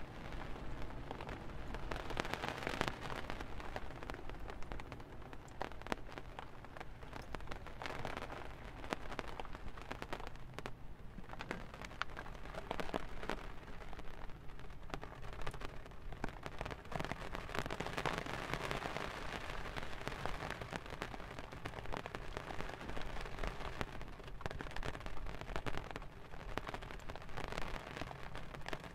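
Rain falling on the flexible fabric of a tent roof: a dense, steady hiss made of countless individual drop taps that swells and eases, over a low steady rumble.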